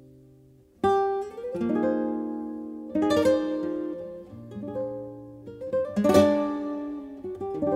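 Guitar music from a recording. A chord dies away, then strummed chords are struck about a second in, again at three seconds and about six seconds in, each left to ring.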